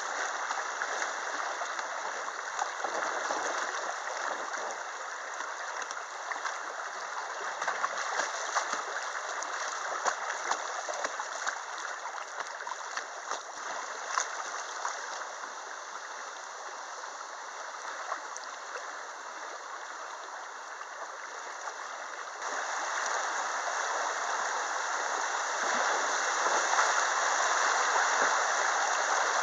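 River water rushing over a shallow riffle around a kayak, a steady rush with small scattered splashes. It turns suddenly louder about two-thirds of the way through and stays louder as the water gets rougher.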